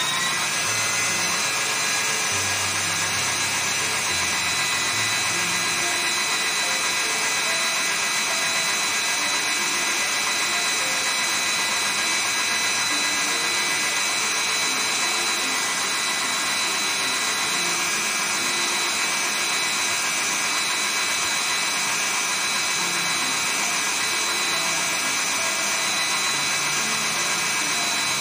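Electric stand mixer running at high speed, beating a cake mixture in a stainless steel bowl: a steady motor whine that finishes rising to speed in the first moment, then holds one pitch.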